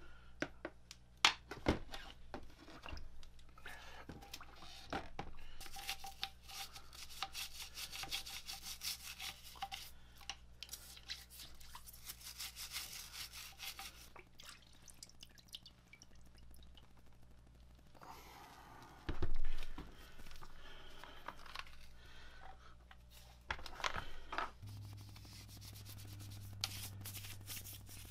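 Stiff bristle brush scrubbing the wet turret tailstock casting and its bevel gears in quick back-and-forth rubbing strokes. There is a louder clatter about two-thirds of the way through.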